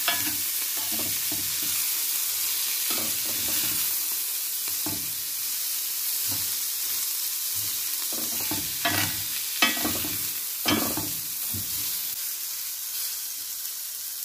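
Chopped cabbage and red pepper sizzling in a hot ridged grill pan, with a spatula scraping and knocking against the pan every few seconds as the vegetables are stirred. The sharpest scrapes come in a cluster a little past the middle.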